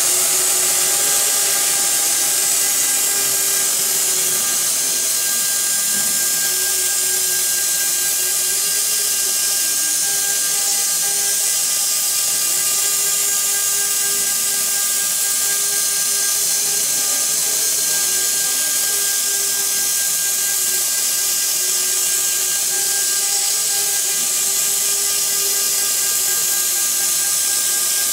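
Spindle of a small CNC router, rated 1.5 kW at 24,000 rpm, running steadily while its bit carves a relief pattern into a fibreboard panel: a loud hiss with a steady whine whose pitch wavers slightly as it cuts.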